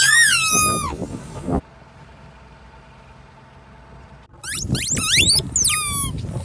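Rubber squeaky-toy fish squealing as a car tyre rolls over and flattens them, forcing the air out. High squeaks slide up and down and cut off about a second and a half in. A second run of squeals starts about four and a half seconds in as the next row of fish is crushed.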